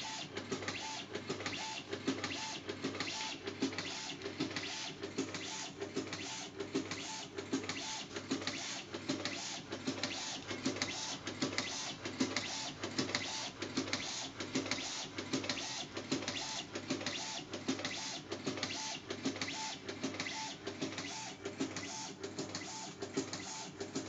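Automatic hot-cold knife tape cutting machine running, feeding white tape off a reel and chopping it into short strips in a steady rhythm of a little more than one cut a second.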